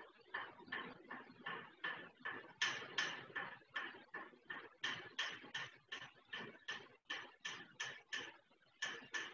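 A run of sharp knocks, evenly spaced at about three a second, with a couple of brief gaps.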